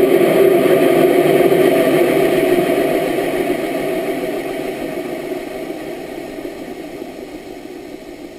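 Rocket motor noise heard through the rocket's onboard camera, a rough rushing sound that holds for a few seconds and then fades steadily as the flight goes on.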